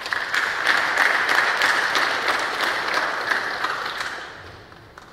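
Audience applauding, the clapping fading out about four seconds in.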